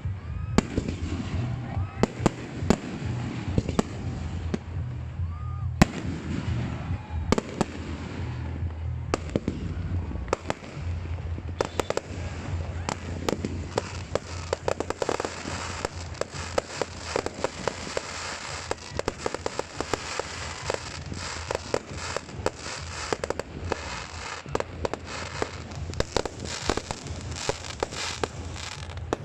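Aerial fireworks display: repeated sharp bangs of bursting shells mixed with crackling, the crackle growing much denser about halfway through.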